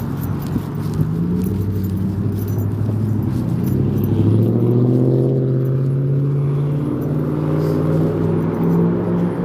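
Motor vehicle engine running close by, its pitch rising as it accelerates over the first few seconds, then holding steady and dropping away at the end.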